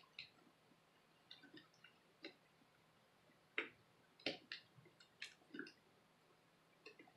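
Faint, scattered small clicks and taps of fingers handling and seating cable connectors on a laptop motherboard, most of them in the middle of the stretch.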